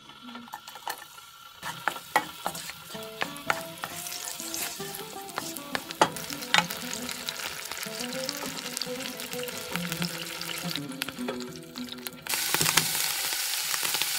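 Frozen spinach and other vegetables sizzling and crackling in hot oil in a frying pan, with many sharp spits and pops. The sizzle gets suddenly louder about twelve seconds in. Soft music plays underneath.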